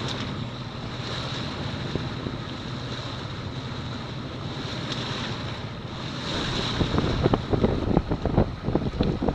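Wind and waves at sea aboard a sailboat under way, with wind buffeting the microphone. The sound is steady at first and grows louder and gustier over the last couple of seconds.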